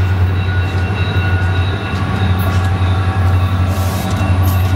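A train passing: a loud, steady, low rumble with thin high-pitched tones from the wheels, like faint squealing, and a few sharp clicks.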